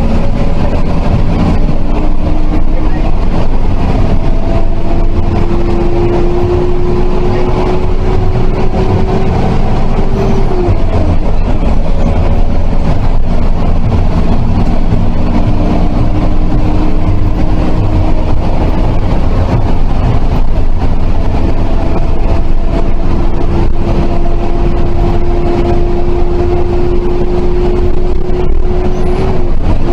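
MIRA intercity bus under way, heard from on board: a loud, steady engine and road rumble with a whine that climbs slowly as the bus gathers speed and drops sharply at gear changes, about ten seconds in and again near the end.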